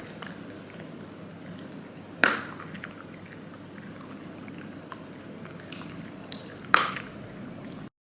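Steady low background noise with two sharp clicks about four and a half seconds apart; the sound cuts off suddenly near the end.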